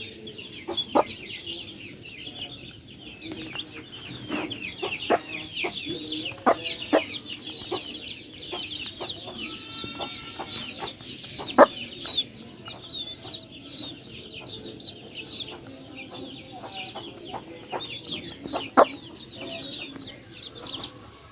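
A flock of free-range chickens: many high chick-like peeps overlapping throughout, with low clucking beneath and scattered sharp taps, the loudest about a third of the way in and again near the end.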